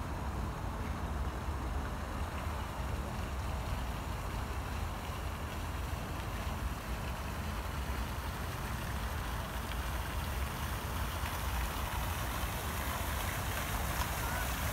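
Water splashing from small fountain jets into a pool, growing louder toward the end, over a steady low rumble.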